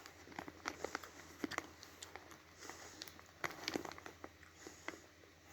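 Faint crinkling of a plastic snack packet, with scattered irregular small clicks and rustles.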